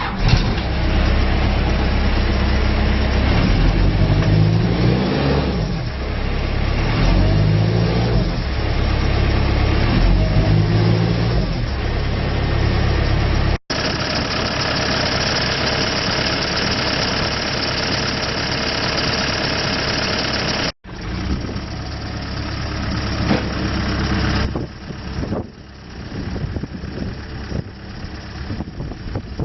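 Case 580SM-II backhoe loader's diesel engine running and being revved up and down several times, the pitch rising and falling. After a couple of cuts it runs steadily, then settles to a quieter idle near the end.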